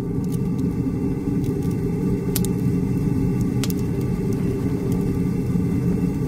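Steady, heavy low rumble, with a few faint sharp crackles over it, the clearest about two and a half and three and a half seconds in.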